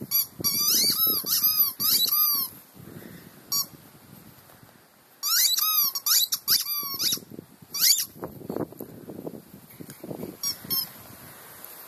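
A dog's squeaky toy squeaking in quick runs as the dog chews it, each squeak rising and falling in pitch: a burst of squeaks over the first couple of seconds, another run from about five to seven seconds in, and a few short squeaks near the end.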